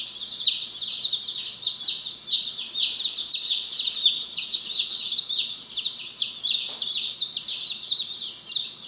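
A brood of Light Brahma chicks peeping without a break: many high, short peeps, each sliding downward in pitch, overlapping into a constant chorus.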